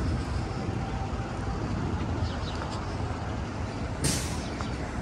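City street sound: a steady hum of traffic, with a short hiss about four seconds in.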